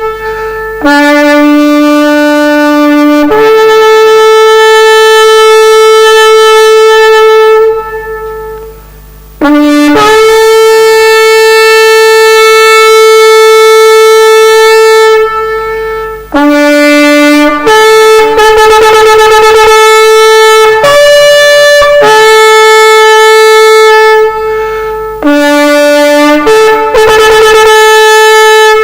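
Shofar (ram's horn) being blown in a series of loud blasts, each starting on a lower note and jumping up to a higher one. Several blasts are held for four to five seconds, and others are shorter, with brief breaths between them.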